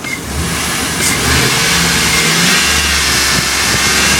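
Chevrolet SSR's 5.3-litre V8 engine running, a steady low drone heard from the open engine bay.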